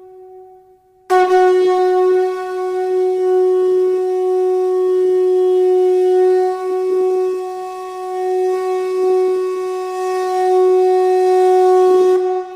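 Conch shell trumpet blown in one long, steady held note. It starts abruptly about a second in after the end of a previous blast and holds for around eleven seconds before tailing off.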